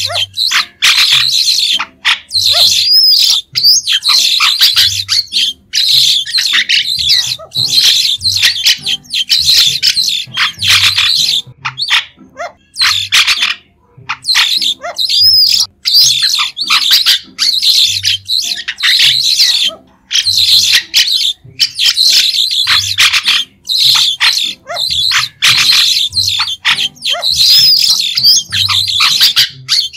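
White-shouldered starling calling: dense runs of short, shrill, high chirps, in phrases broken by brief pauses every second or two.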